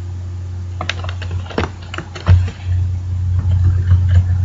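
Computer keyboard keys clicking in quick irregular keystrokes while a password is typed, with one louder knock about two seconds in. A steady low hum runs underneath.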